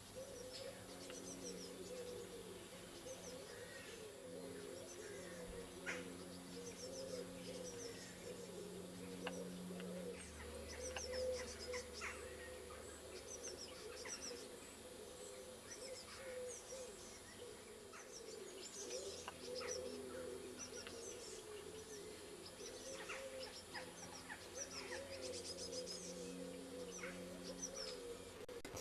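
Fledgling blue tits calling: many short, high chirps, scattered and frequent.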